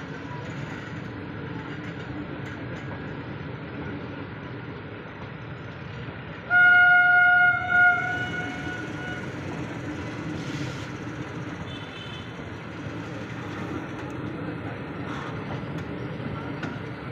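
Express passenger train running past the level crossing, its wheels and carriages making a steady rumble. Its horn sounds one loud blast about six and a half seconds in, breaks off for an instant, and gives a short second note just before eight seconds.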